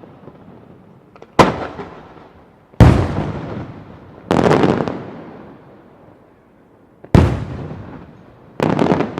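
Large firework bombs bursting: five heavy bangs in about seven seconds, each trailing off in a long rumbling echo.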